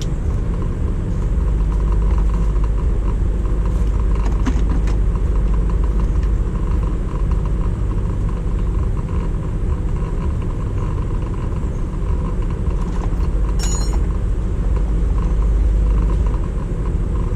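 Steady low rumble of a motor vehicle running, with a few faint clicks.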